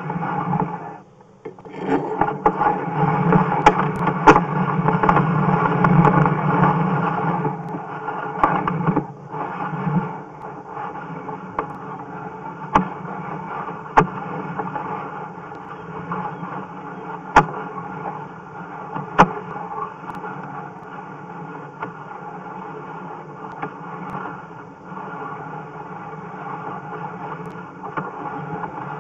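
Sewer inspection camera's push rod being fed down a sewer line: a steady scraping rub, louder for the first several seconds and then lower, with a handful of sharp clicks through the middle.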